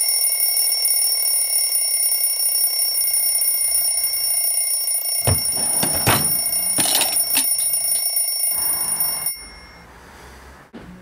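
Alarm clock ringing with a steady, shrill bell tone for about nine seconds, then cutting off suddenly. Partway through, rustling and clattering as a nightstand drawer is opened and rummaged.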